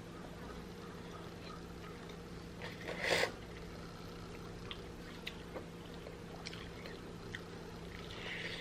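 A person quietly chewing turkey leg meat in alfredo sauce, with a brief louder wet mouth sound about three seconds in and a few faint mouth clicks after it.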